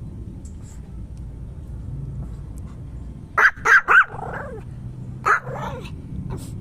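Pomeranian barking: three quick, sharp yaps about halfway through, then one more about a second later.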